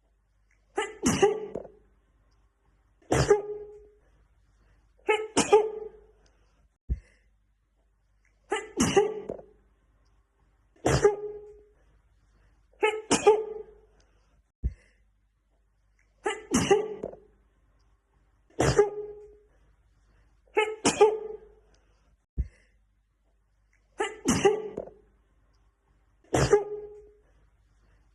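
A woman sneezing over and over in a fit, eleven sneezes about two seconds apart. A short run of three sneezes repeats as a loop, with a faint click at each join.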